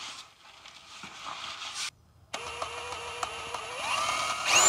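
Handling noise, then a power drill with a twist bit starting against the plastic filter cap of a Hydro-Gear hydrostatic transmission: it runs slowly at first, speeds up in two steps, and ends at full speed with a loud, high whine as the bit bites in to drill a drain hole.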